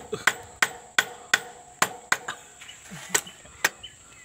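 A steel machete used as a hammer, striking at a motorcycle's rear axle and swingarm in a makeshift chain tensioning. Quick blows about three a second, each ringing like struck metal, for about two seconds, then a few slower, lighter blows.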